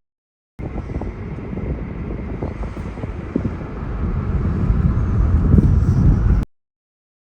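Steady low rumble of a car on the road, with wind noise on the microphone. It cuts in abruptly about half a second in and cuts off abruptly about a second before the end, with dead silence either side.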